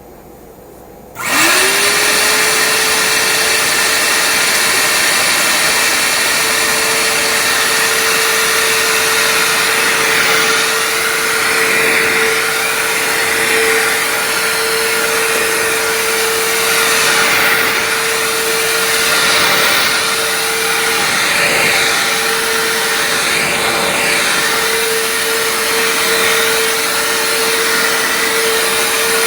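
Hoover Floormate hard floor cleaner switched on. Its motor spins up with a quick rising whine and then runs steadily with a loud rushing hiss, swelling and easing slightly every couple of seconds.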